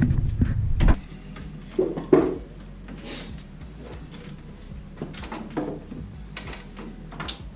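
Scattered knocks and clicks of hands handling truck parts, with two louder clunks about two seconds in and lighter clicks after that.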